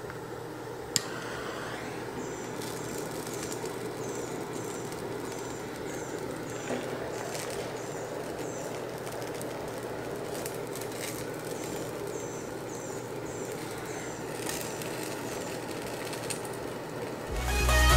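Steady background noise with two runs of short, high chirps repeating about twice a second. A single sharp click comes about a second in. Electronic music rises in just before the end.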